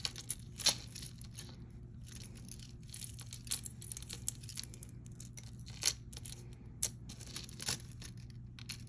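Jewelry being handled: scattered light clicks and clinks of small metal pieces and chain, with bursts of quick rattling and rustling, over a faint steady hum.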